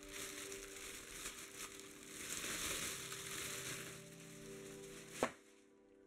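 Plastic bag crinkling and rustling as it is pulled off a mountain bike wheel, loudest about halfway, with a sharp knock near the end.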